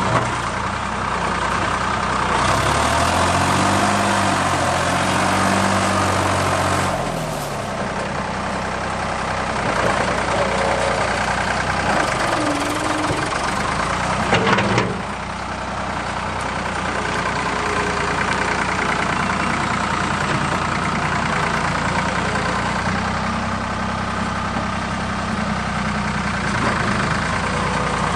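Ford 555 backhoe's diesel engine running. Its pitch rises and falls for several seconds near the start, there is a short clank about halfway through, and then it runs steadily.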